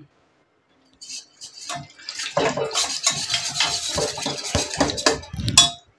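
A spoon stirring a thin, watery spice batter in a bowl, clinking and scraping against the bowl in quick, irregular strokes. It starts about a second in.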